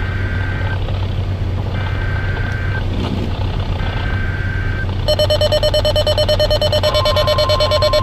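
Weather radio Emergency Alert System activation: three one-second chirping SAME data bursts a second apart, then a rapidly pulsing alarm tone, joined near the end by the steady NOAA Weather Radio 1050 Hz warning tone. A constant low road hum from the car runs underneath.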